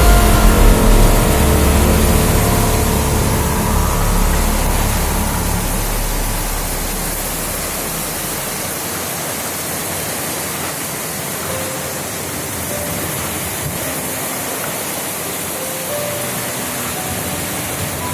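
Storm wind blowing, a steady rushing hiss. A heavy low rumble of wind hitting the microphone dies away about eight seconds in.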